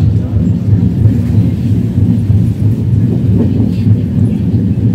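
Steady low rumble of a Trenord TAF electric multiple unit running along the track, heard inside the passenger cabin.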